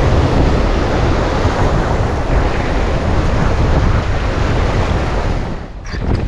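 Wind buffeting the microphone over the wash of surf breaking on a rock shelf: a steady, loud rush with a heavy low rumble that dips briefly near the end.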